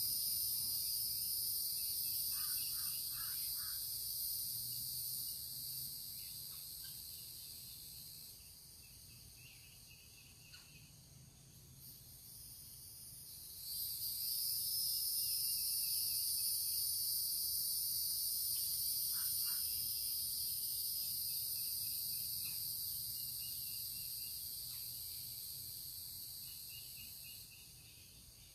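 A high-pitched chorus of insects droning steadily, fading away partway through, then swelling back in abruptly about 14 seconds in and fading again near the end. Faint short bird calls sound now and then underneath.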